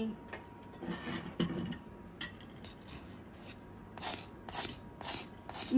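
Metal spatula cutting and scraping through the crisp, browned tahdig crust of Persian saffron rice, a dry crunching rasp. A few faint scrapes come about a second in, then a run of about five sharp crunches near the end.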